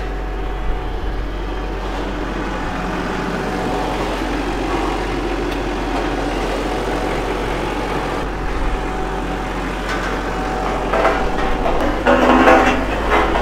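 Case IH tractor's diesel engine running steadily as the tractor drives down aluminium loading ramps off a low-loader trailer. A louder clatter comes near the end as it comes off the ramps.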